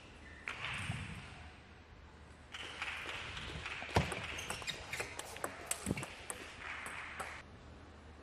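Table tennis rally: the plastic ball clicks sharply on the bats and table in quick succession, about two hits a second, the loudest about four seconds in. A steady hiss sits behind the hits.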